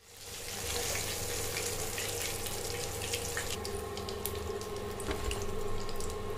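Chicken deep-frying in hot oil: a steady sizzling hiss with many scattered crackles, fading in over the first second.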